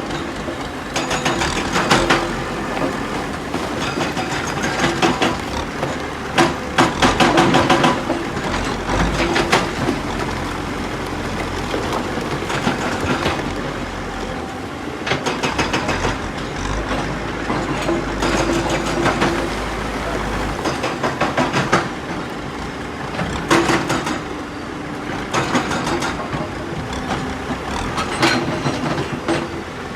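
Tata Hitachi EX 210 LC excavator's diesel engine running under load while its hydraulic rock breaker hammers stone in repeated bursts of rapid blows, each burst lasting a second or two.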